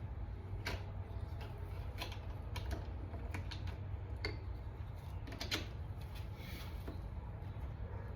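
Irregular sharp clicks and taps of small metal suppressor baffles and clamp shells being handled and fitted together, over a steady low hum.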